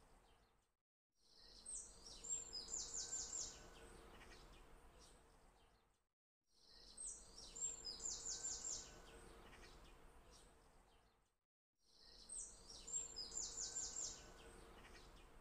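Faint looped birdsong ambience: the same short run of high, quick chirps repeats about every five seconds, each pass fading in and out, over a faint steady hum.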